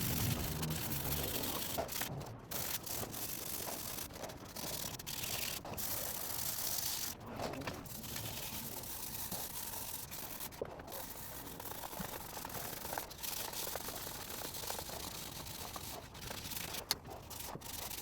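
Hand sanding of a wooden chair leg: sandpaper rubbed back and forth as a continuous hiss, broken by a few brief pauses.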